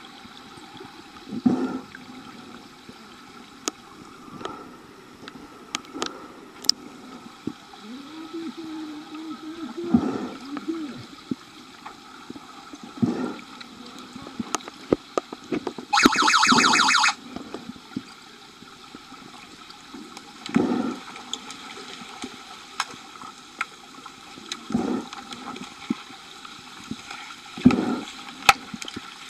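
Underwater sound of a pool during an underwater hockey game: muffled gurgling and bubbling with scattered low thuds from the players and sticks. About halfway through, a loud buzzing tone sounds for about a second, the kind of underwater buzzer referees use to signal a stop in play.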